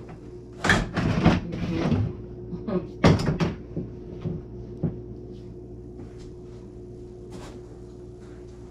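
Household items or furniture being handled, with knocks and rattling in two loud bursts, about a second in and again about three seconds in, then a few lighter clicks.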